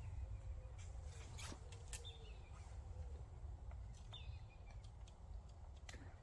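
Quiet waterside ambience: a bird gives a short, falling call about every two seconds over a steady low rumble, with a few sharp clicks, mostly in the first two seconds.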